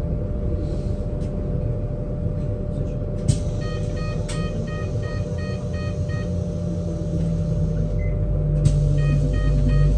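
BYD K8 battery-electric bus running, heard on board: a steady hum over road rumble, growing louder in the second half as a low tone comes in. A repeating electronic beep, about two to three a second, starts a few seconds in, stops, and resumes near the end.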